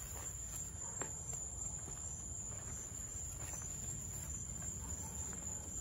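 A steady, high-pitched chorus of crickets, with a low rumble underneath and a few faint footsteps.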